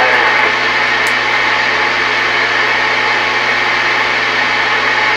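Steady static hiss from a Tram Titan II CB base station's speaker between transmissions, over a steady low hum.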